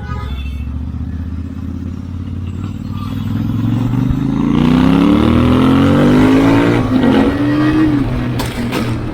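Royal Enfield Interceptor 650 parallel-twin engine accelerating, its pitch rising steadily for several seconds. Near the end it falls off as the throttle closes, and a few sharp cracks follow from the exhaust on the overrun.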